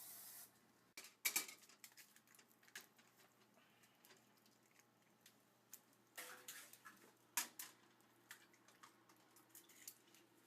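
Faint, scattered clicks and taps of small objects being handled, with a brief hiss at the very start, a louder tap about a second in and a cluster of taps around six to seven seconds in.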